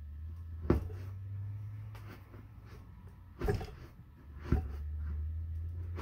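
Hands pushing and tucking fabric into a craft pumpkin, with several short knocks as it is handled on the table. A low hum comes and goes underneath.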